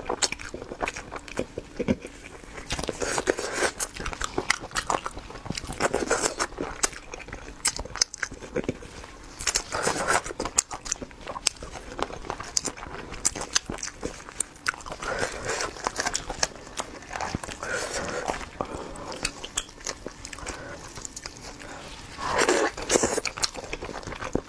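Close-miked eating of steamed chicken: irregular wet chewing and lip-smacking clicks, with louder spells of mouth noise now and then. Near the end comes the soft tearing of the chicken meat pulled apart by hand.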